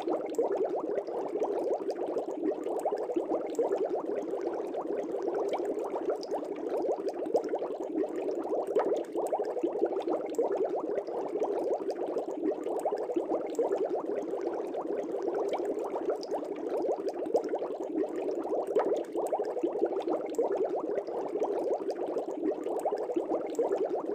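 Aquarium air bubbles rising and popping at the water surface in a steady, dense bubbling with scattered small pops.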